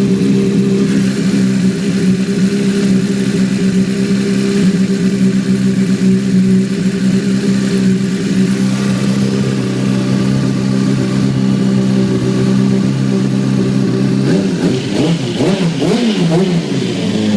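2006 Honda CBR600RR's inline-four engine running at a steady idle, then its pitch rising and falling several times in quick wavers from about 14 seconds in. It carries the odd noise the bike has made since it slid over in a low-speed fall, its cause unknown.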